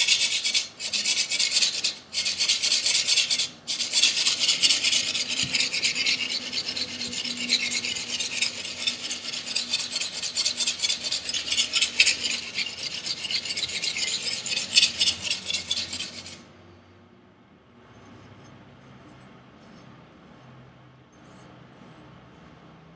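Chinese chef knife's edge being stroked rapidly back and forth across a sharpening abrasive to blend it into a convex edge: a dry rasping scrape with a few brief pauses, stopping about 16 seconds in.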